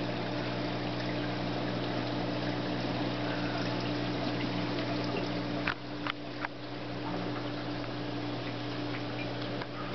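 Reef aquarium circulation pumps and powerheads running: a steady electric hum under the wash of moving water, with a few brief clicks about six seconds in.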